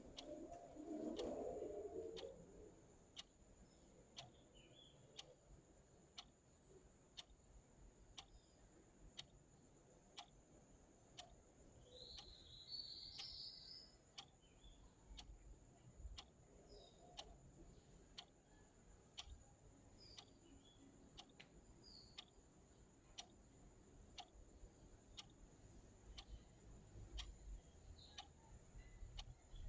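Clock ticking softly and evenly, about once a second.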